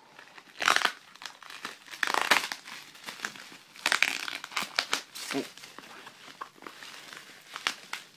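Plastic bubble wrap crinkling and rustling in irregular bursts as it is handled and pulled off a boxed toy.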